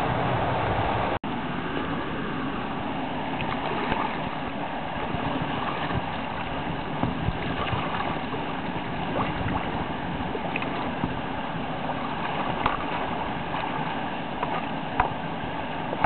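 Whitewater rapids rushing steadily close by, a dense hiss of moving water with a few short splashy ticks. The sound cuts out for an instant about a second in.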